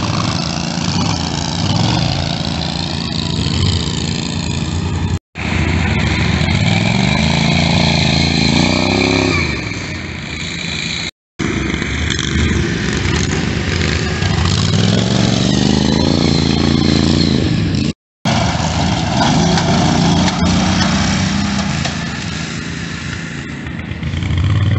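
Riding lawn mower engines running hard and revving, the pitch rising and falling several times as the mud mowers push through mud and water. The sound cuts off abruptly three times.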